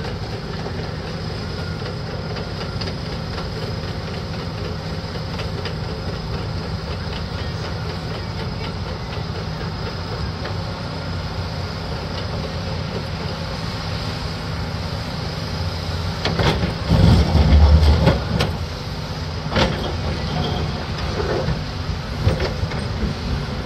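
A large engine running steadily with a low hum. It surges louder for a couple of seconds about two-thirds of the way through, followed by a few sharp knocks.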